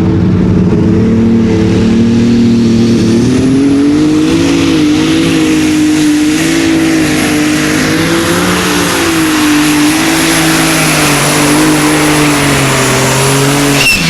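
Super stock pulling tractor's turbocharged engine running hard under load during a pull, its pitch wavering, with a high turbo whine that rises early on and then holds. A sharp crack sounds just before the end.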